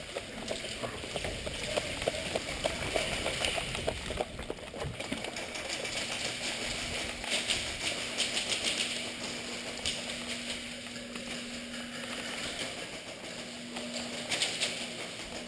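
Rustling and footfalls of a player moving on foot through a game field, with two spells of rapid clicking, one in the middle and one near the end.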